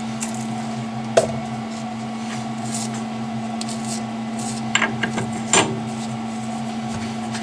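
13x40 manual metal lathe running with a steady hum and no cut under way, with a sharp click about a second in and a few more clicks and knocks past the middle.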